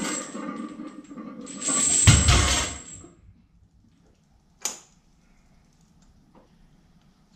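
Metallic clattering and rattling that ends in a heavy thump about two seconds in, then a single sharp click in the quiet after it.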